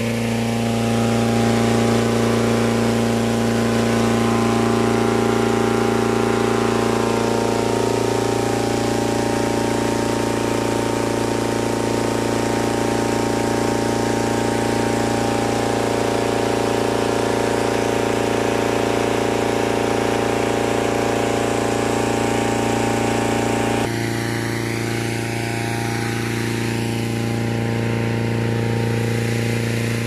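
Engine-driven inflator fan running steadily, blowing cold air into a hot air balloon envelope during cold inflation. The sound shifts abruptly and gets slightly quieter about three-quarters of the way in.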